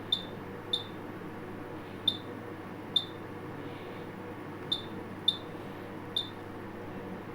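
Short, high keypad beeps from a Cooper fire alarm control panel as its keys are pressed during programming: seven beeps at uneven intervals over a steady background hum.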